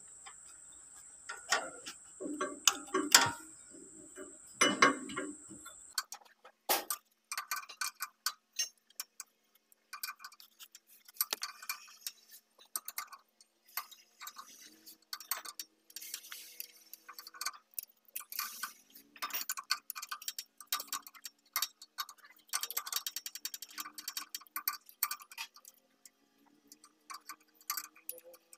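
Hand tools clicking and clinking on the metal bolts and nuts of a tractor's brake linkage, with a run of fast, even ticking in the second half.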